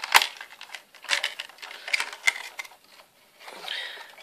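Clear plastic cricket tub and its hinged lid clicking and knocking against a plastic cricket keeper as live crickets are tipped in. A run of sharp plastic clicks and rattles, the loudest just after the start.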